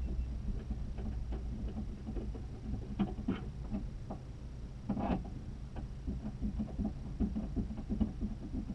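Irregular light taps, clicks and rustles, with a louder pair near the middle, over a steady low rumble.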